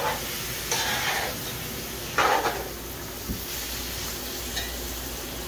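Metal spoon stirring chicken feet and dal in a metal karahi: three short scraping strokes in the first few seconds, then a couple of light knocks, over a steady sizzle of the frying pot.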